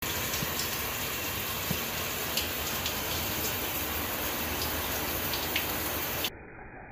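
Shower spray running steadily, an even hiss of falling water with scattered small drips and splashes. About six seconds in it drops suddenly to a fainter, muffled hiss.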